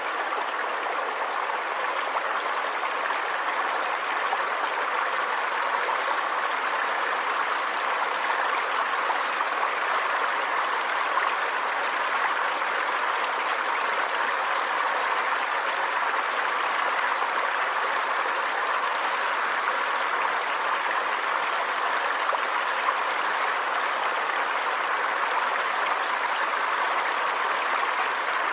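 Flowing river water rushing steadily, an even hiss-like noise with no change in level.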